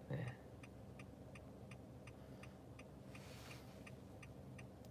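Car turn-signal indicator ticking steadily inside the cabin, about three clicks a second, with a brief soft hiss a little after three seconds in.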